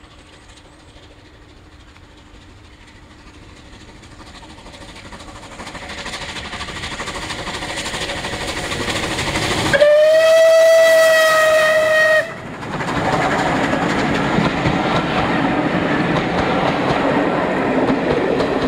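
Bulleid light Pacific steam locomotive approaching with a passenger train, its running sound growing steadily louder. As it reaches the lineside it sounds its whistle, one steady note held for about two seconds. The rumble and clatter of the coaches rolling past follows.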